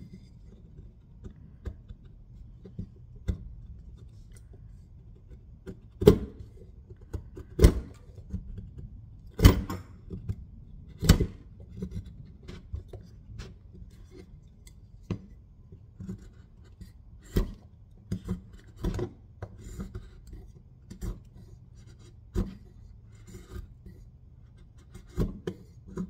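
Leatherman multitool knife blade shaving a wooden stick, making feather cuts: irregular short scraping strokes, a few of them much louder than the rest.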